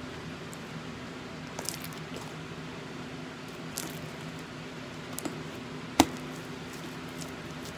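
Sticky glitter slime being kneaded and squeezed by hand against a wooden table, giving soft wet squelches and small clicks, with one sharp click about six seconds in. A steady low hum runs underneath.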